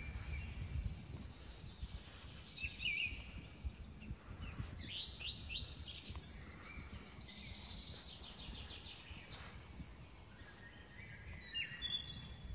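Woodland birds calling and singing: a few chirps, then a quick run of falling notes about five seconds in, followed by a thinner trill and more chirps near the end, over a steady low rumble.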